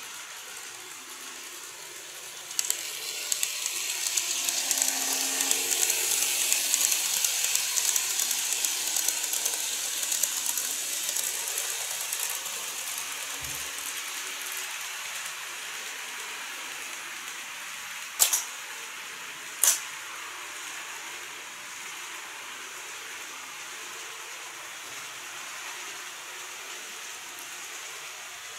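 Model trains running on the layout track: a rattling clatter of small wheels on the rails with a faint motor hum. It starts suddenly a few seconds in, stays loudest for several seconds, then eases off, with two sharp clicks about two-thirds of the way through.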